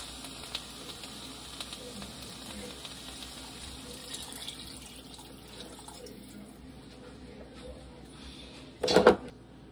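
Water poured from a glass measuring cup into a cooking pot, a low steady splashing. About nine seconds in there is one brief, much louder sound.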